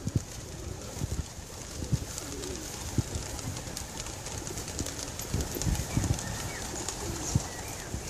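Young racing pigeons cooing now and then, with scattered low thumps and a few faint high chirps.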